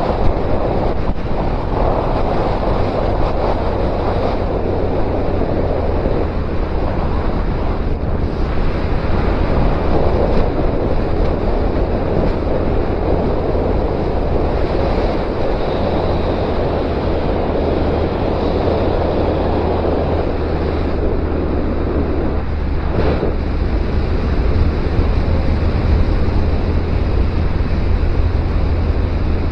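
Heavy wind rushing over the microphone of a riding motorcycle, with the Suzuki Bandit 1250's inline-four engine making a steady low drone underneath.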